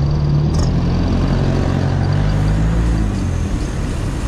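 Road traffic: a motor vehicle's engine humming close by over a steady low rumble.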